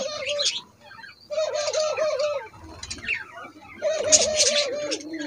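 White doves cooing in three bursts of quick, wavering notes, with budgerigars chirping and chattering high above them.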